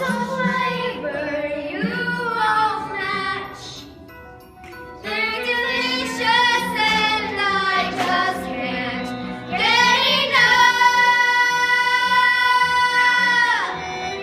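Children singing a musical-theatre song with instrumental accompaniment. About ten seconds in they move into one long held note, which stops shortly before the end.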